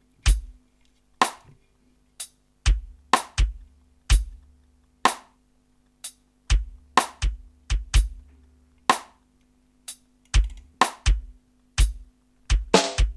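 Drum track played through a sound system for a sound check: separate kick-drum and snare hits with short gaps between them, over a faint steady hum. Near the end the hits come faster, leading into a full beat.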